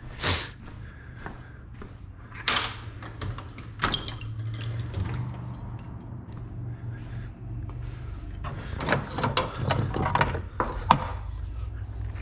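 Hand tools and a socket clicking and knocking against metal while a spark plug is removed from an engine, with a short ringing metallic clink about four seconds in and a quick run of clicks near the end, over a steady low hum.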